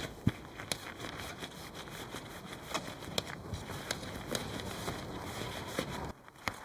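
Handling noise from pitching a large dome tent: irregular sharp clicks and crackles over a low steady background.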